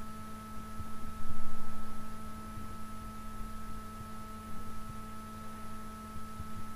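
Steady electrical hum with a low rumble beneath it, and a louder low surge about a second in.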